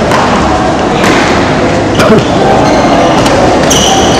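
Badminton rally: rackets striking the shuttlecock in several sharp hits about a second apart, with a shoe squeaking on the court floor near the end.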